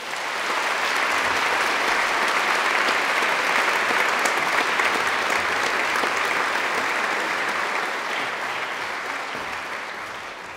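Audience applauding: the clapping builds within the first second, holds steady, then dies away over the last couple of seconds.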